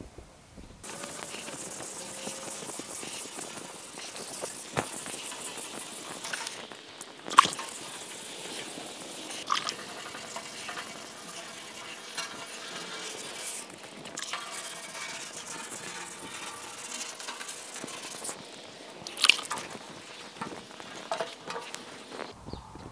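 Wet sanding: sandpaper on a hand sanding pad scrubbing steadily over the wet primer of a 1950 Chevy truck fender, a final blocking pass to get the panel straight. A few short sharp knocks stand out, the loudest about seven seconds in.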